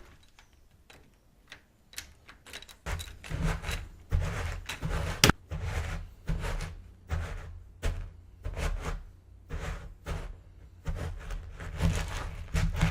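Footsteps on a hard floor: a run of thuds at about two a second, starting about three seconds in, with sharper clicks and knocks among them.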